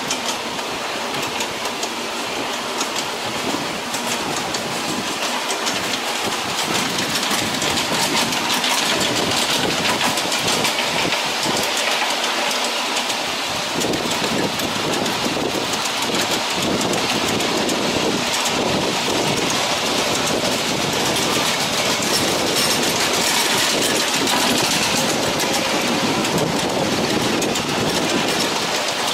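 Ride-on miniature railway passenger cars rolling along the track: a steady rolling noise from the steel wheels on the rails, with a lot of fine clicking.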